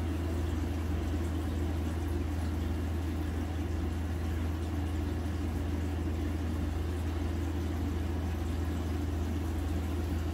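Aquarium pump motor humming steadily, a constant low hum with no change.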